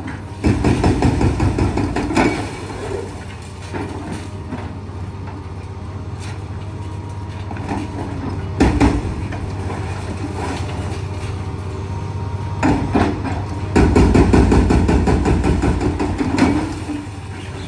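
Hydraulic breaker on a Liebherr 954 excavator hammering in rapid bursts: about two seconds near the start, a short burst midway, and nearly three seconds near the end. Between the bursts the excavator's diesel engine runs steadily.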